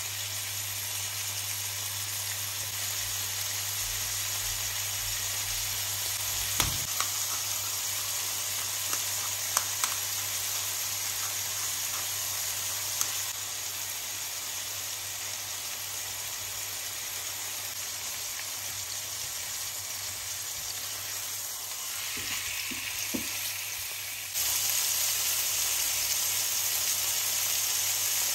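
Chicken breasts frying in a pan, a steady sizzle with a few light ticks; the sizzle steps up louder near the end.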